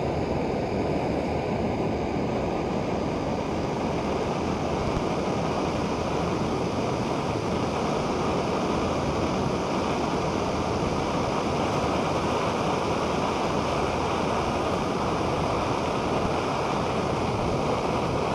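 Ocean surf breaking on the shore, a steady, continuous wash of waves.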